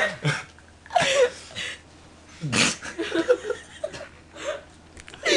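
A young man laughing in short breathy bursts and snickers, with brief pauses between them.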